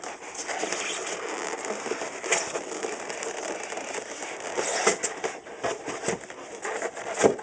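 Rustling and scraping handling noise with scattered light clicks and knocks, and a sharper knock near the end.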